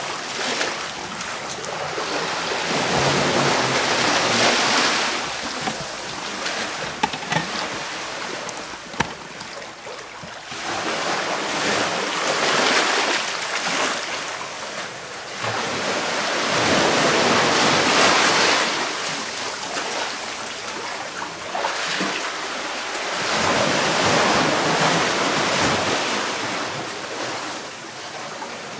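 Sea surf washing in over sand and rocks, a steady rush that swells and ebbs about every six seconds as each wave comes in and draws back.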